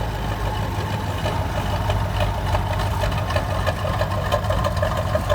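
Tractor diesel engine idling steadily, with a light, even rhythmic rattle over the hum.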